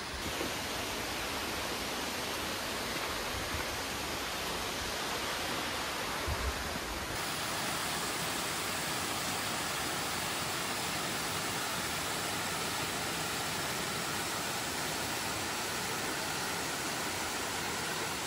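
Steady rushing of a waterfall, water pouring down bare rock slabs, with a slight change in the rush about seven seconds in.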